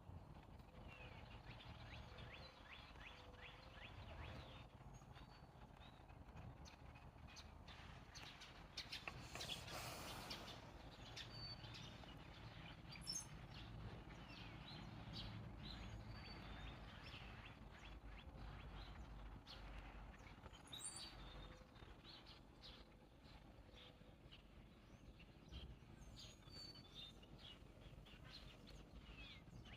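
Faint bird chirps, many short calls scattered throughout over a low outdoor background noise, with a brief rush of noise about nine seconds in.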